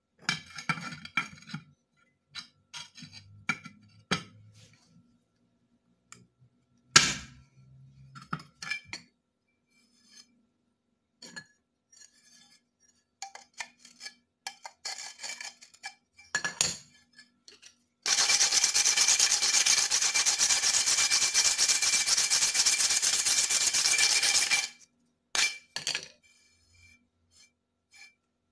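Ceramic tile being worked by hand: scattered clinks and taps of hard pieces, with a sharper knock about seven seconds in, then about six seconds of steady rasping scrape across the tile, and a few more clinks near the end.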